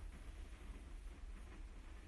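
Quiet room tone: a low steady rumble with a faint hiss.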